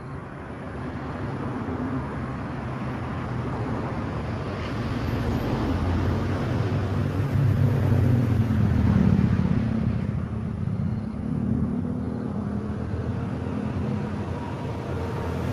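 Road traffic rumble, with vehicles passing. It swells to its loudest about eight or nine seconds in, then eases off.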